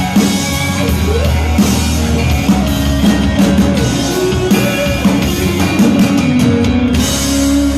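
Live rock band playing an instrumental passage with drum kit and guitar.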